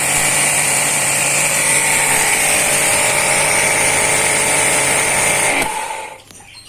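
H&L QL 1900 high-pressure washer (jet cleaner) running steadily with a motor whine and water hiss, then switched off about five and a half seconds in.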